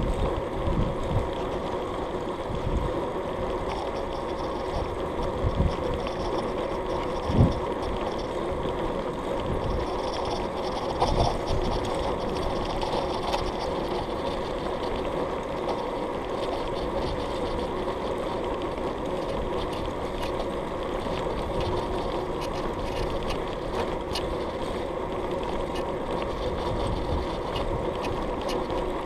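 Bicycle rolling along a tarmac path: a steady hum from the tyres and bike, with low wind rumble on the microphone and a few short thumps, the loudest about seven seconds in.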